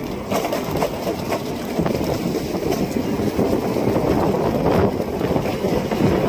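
Wind buffeting the phone's microphone on a moving scooter: a steady, loud rushing noise with no engine note.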